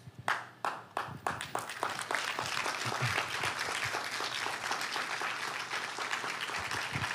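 Congregation applauding: a few scattered claps at first that quickly swell into steady applause.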